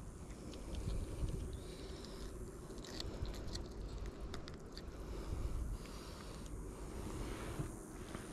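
Small clicks and crackles of hands unhooking a soft-plastic stick bait from a bass's mouth, over a steady low rumble.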